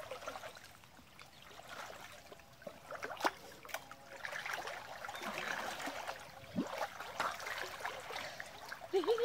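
Creek water sloshing and trickling around people wading in it, with a few small sharp splashes, busier in the second half.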